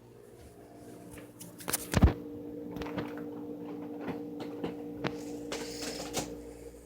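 Refrigerator being opened and searched: a loud thump about two seconds in, then scattered clicks and knocks of things being handled, over a steady hum.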